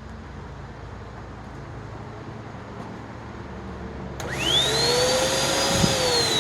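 Hoover NanoLite vacuum cleaner motor switching on with a click about four seconds in, its whine rising quickly in pitch and then holding steady, before starting to fall in pitch near the end.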